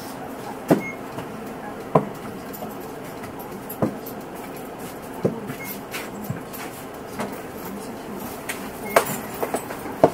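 Cabin noise inside a Mitsubishi Aerostar one-step city bus as it runs, a steady hum with a scatter of sharp clicks and knocks from rattling interior fittings, about six of them standing out.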